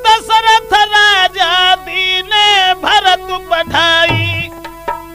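Instrumental passage of a North Indian Holi folk song: a melody instrument plays bending, sliding notes over a held drone.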